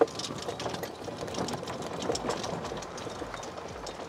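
A small motor running with a steady, rapid mechanical clatter.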